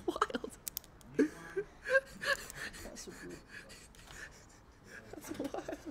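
Quiet, indistinct voice sounds in short fragments, mumbling and breathy, with a few light clicks in the first second.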